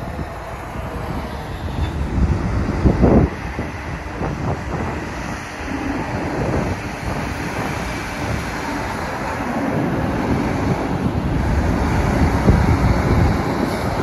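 Semi-truck diesel engines rumbling at low speed as a long-hood Peterbilt pulling a tank trailer rolls up and passes close, growing a little louder near the end. Wind buffets the microphone, with a short gust about three seconds in.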